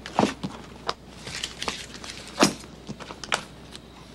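Scissors snipping through the tape and paper wrapping of a parcel: a string of sharp, irregular snips and crinkles, loudest about two and a half seconds in.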